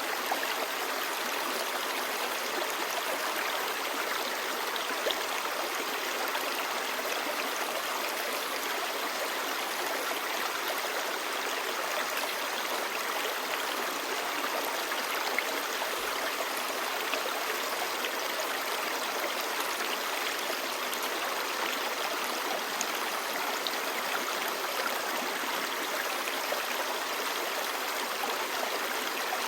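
Clear mountain stream babbling steadily over stones.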